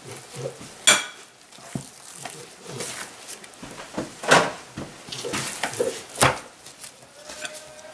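Knife and raw pork handled on a wooden cutting board: a few sharp knocks of the knife and meat against the board, the loudest about a second in, about four seconds in and near six seconds, with quieter handling sounds between.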